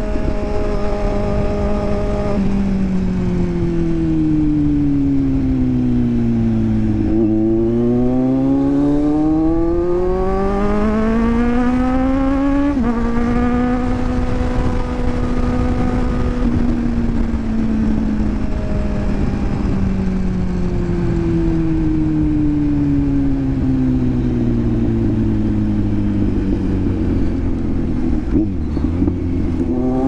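Inline-four sport motorcycle engine under way. It holds steady, then winds down as the throttle is rolled off, pulls up through the revs, and drops sharply in pitch about 13 seconds in as it shifts up. It then sinks slowly before picking up again near the end, over steady wind and road rush.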